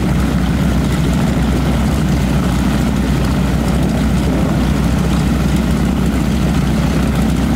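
Radial engine and propeller of a taxiing T-6 Texan-type warbird trainer running at low power: a steady, loud, low rumble.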